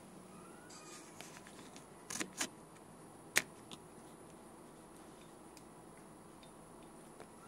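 Faint, quiet kitchen room tone with a few light clicks and knocks: two close together about two seconds in, then a single sharper click about a second later and a softer one just after.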